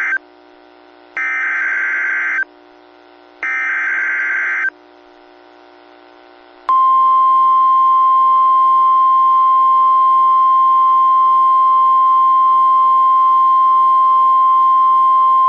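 NOAA Weather Radio's SAME alert header: the end of one buzzy digital data burst and two more about a second long, then about seven seconds in the steady 1050 Hz warning alarm tone sounds, signalling that a new warning message follows.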